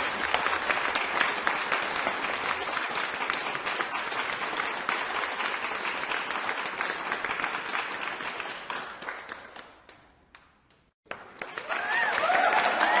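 Crowd applauding, a dense steady clatter of many hands clapping that fades away about eight seconds in to a brief silence. About a second later a new round of applause starts and swells up near the end.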